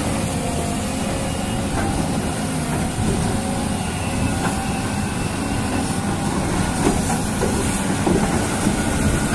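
Small electric motor and plastic gears of a radio-controlled toy dump truck running steadily, a faint wavering whine over a steady low rumble, with a few light knocks.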